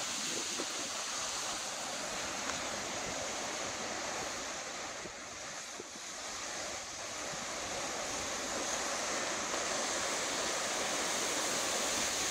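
Hurricane-force wind gusting through palm trees: a steady rushing noise that eases a little about halfway through, then builds again toward the end.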